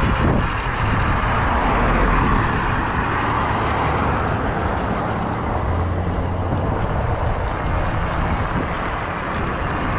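Bafang BBS-HD mid-drive e-bike motor with steel gears running at lower RPM after a shift to a lower gear, its gear whine much quieter, under a steady rush of riding noise.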